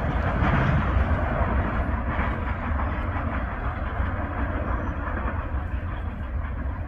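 Freight train rolling past: a steady rumble and rattle of cars and wheels on the rails, easing slowly in loudness.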